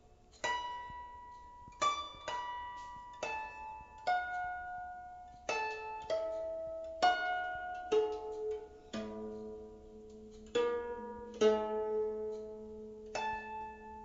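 Guzheng (Chinese plucked zither) played slowly: about a dozen single plucked notes, each starting sharply and ringing out as it fades, with a lower note sounding under the others in the second half.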